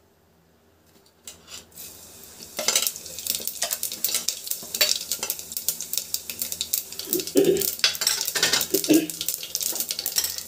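Cumin seeds sizzling and crackling in hot oil in a pressure cooker, starting a couple of seconds in, with a couple of louder knocks against the pot near the end as they are stirred.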